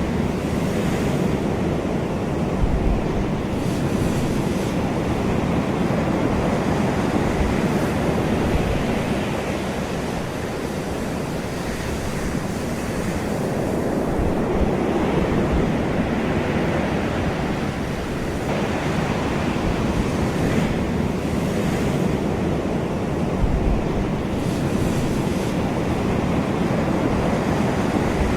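Ocean waves washing onto a shore in a continuous rush of surf, swelling and easing slowly every several seconds.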